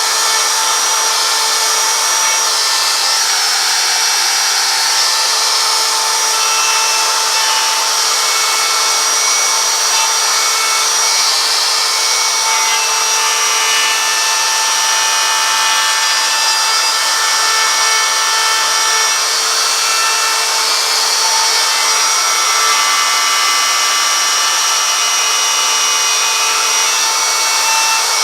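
An electric power tool running steadily at high speed with a whining tone, its sound brightening and dulling now and then as it works the wood.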